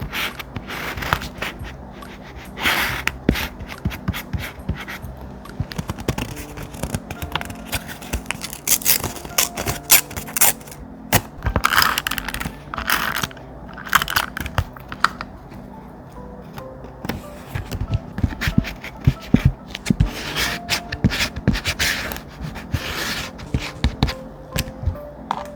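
Thick paper being handled and worked: repeated rustling swishes with many sharp taps and crackles, over faint background music.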